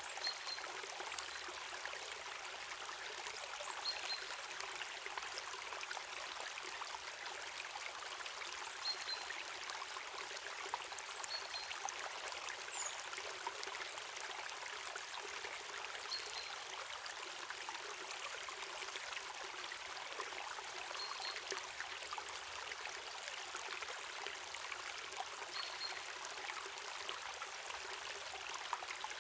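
Water running over a small waterfall into a stream: a steady, even rush with fine splashing and little deep rumble.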